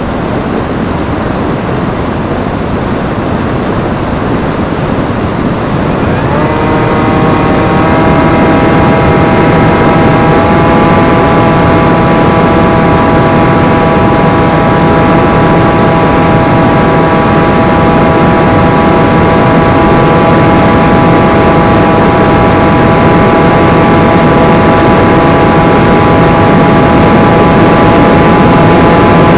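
Loud wind rush over the onboard microphone of a small electric FPV flying wing in flight. About six seconds in, the motor and propeller whine comes in, rising quickly in pitch as the throttle goes up, then holding a steady pitch.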